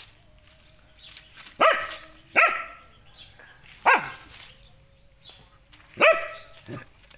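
A dog barking: about five short, sharp barks at uneven intervals, each falling quickly in pitch.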